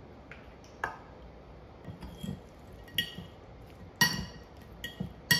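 Kitchenware clinking: a handful of sharp, briefly ringing clinks, the loudest about four seconds in and again at the end, with a few soft taps in between.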